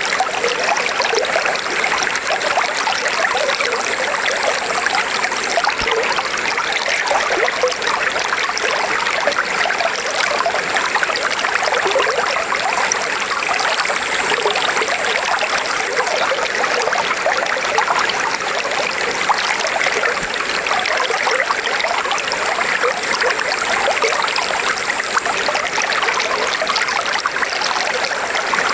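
River water flowing steadily over stones, a continuous, even rushing and trickling with no pauses.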